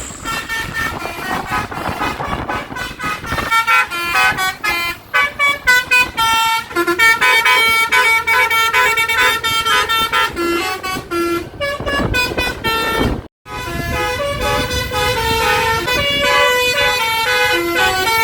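Telolet basuri bus horn playing a quick, many-note tune of short stepping tones over road noise, with a sudden brief break about two-thirds of the way through.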